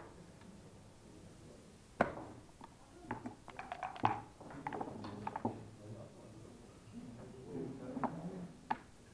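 Sharp clicks and clatter of backgammon play, checkers and dice striking the board, in scattered single knocks and one quick run of clicks about three to four seconds in, over a faint room murmur.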